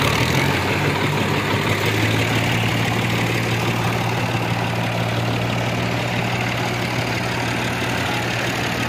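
Massey Ferguson 260 tractor's diesel engine idling steadily.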